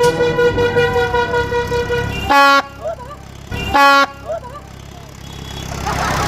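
A prank train horn sounding one long steady note that stops about two seconds in, followed by two short, louder blasts at a lower pitch about a second and a half apart.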